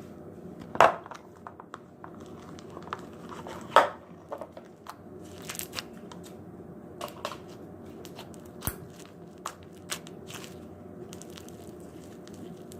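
Slime being squished and stretched by hand, giving irregular crackling, popping clicks, with two louder pops about a second in and near four seconds.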